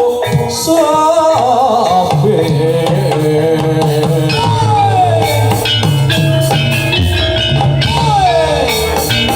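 Javanese reog accompaniment music: drums beating a steady pattern under held instrument tones, with a singer's line in Javanese that slides down in pitch twice.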